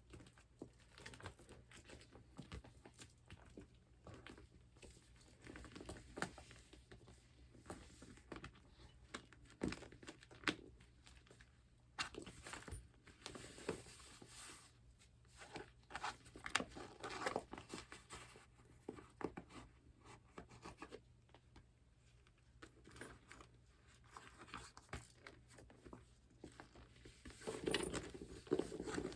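Hands handling vintage patent leather handbags: the sticky vinyl surface crackles and peels as it is pressed and pulled away, in irregular small clicks and crinkles. There is a denser, louder stretch of it near the end.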